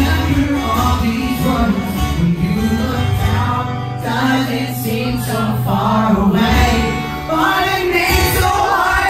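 Live rock music played loud: acoustic guitar with band backing and singing.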